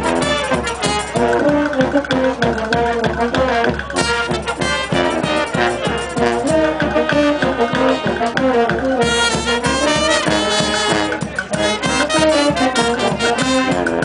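Live folk brass band playing a lively tune: trumpets, saxophones, trombone and sousaphone over a steady beat on a bass drum with cymbal.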